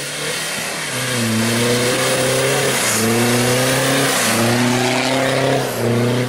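Nissan Navara ute's engine revving hard under load in soft sand, with its wheels spinning and throwing sand. The revs climb and drop back several times, over a steady hiss.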